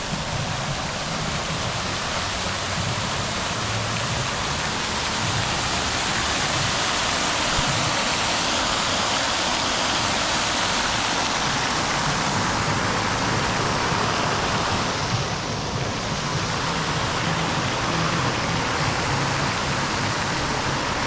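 Steady rushing of running water, with a brief softening about fifteen seconds in.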